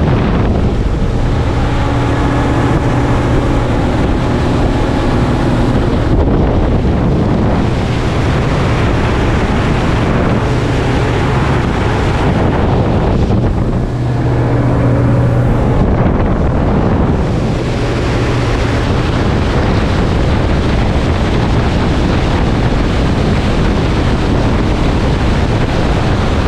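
Motorboat running at speed: a steady engine hum under heavy wind buffeting on the microphone and water rushing past the hull. The engine's tone comes through more clearly for a few seconds at a time.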